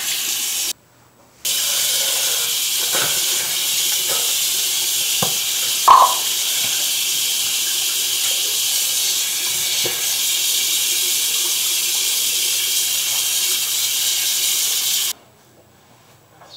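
Bathroom sink tap running in a steady hiss while someone splashes water on their face, with a few knocks and splashes. The water stops briefly about a second in and is turned off near the end.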